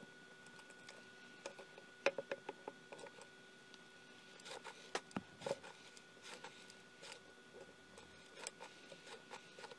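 Faint handling noises: scattered small clicks, taps and rustles, with a quick run of clicks about two seconds in, over a faint steady whine.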